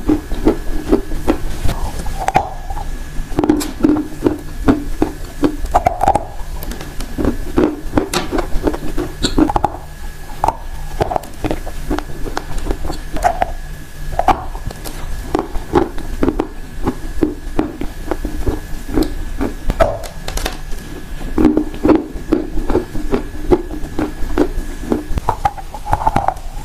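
Close-miked crunching and chewing of a chunk of dry yellow clay, a dense run of crackling crunches as it is bitten and ground between the teeth.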